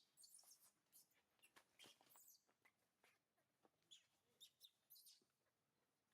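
Faint, scattered high-pitched chirps from a small animal, a few short calls each second.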